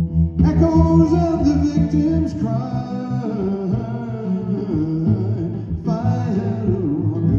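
Live song: a voice singing long held, wavering notes over guitar accompaniment.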